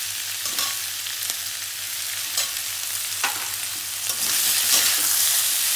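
Vegetables sizzling in hot oil in a steel kadai, with a few scrapes and clinks of a steel spatula stirring them. The sizzle grows louder a little past four seconds in.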